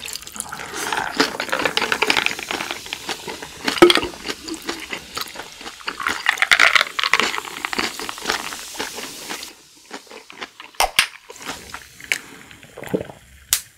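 Beer poured from a can into a glass, a steady pour with fizzing that runs for several seconds and swells about two-thirds of the way through, then stops. A few short sharp clicks follow near the end.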